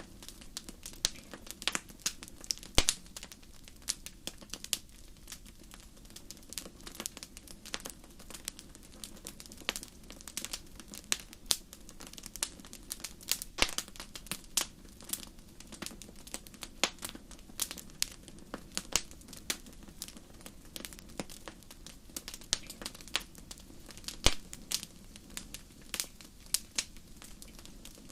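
Wood fire crackling in a fireplace: irregular sharp pops and snaps, several a second, over a steady low background.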